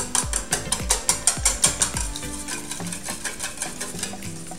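Wire whisk beating raw eggs in a stainless steel bowl: quick, even strokes of the wires against the metal, about five or six a second, loud at first and softer after about two seconds.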